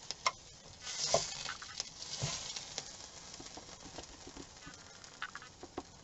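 Metal fork clicking and scraping against a plate as hot, freshly grilled chicken is moved onto it, with a short sizzle between about one and two and a half seconds in and a few lighter ticks near the end.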